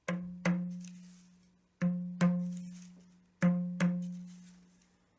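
Newly fitted tabla skin struck three times in quick pairs, each stroke ringing on the same steady pitch and fading away. The skin is being tapped around its edge to check that the tone is even all round as tension is added to the badhi.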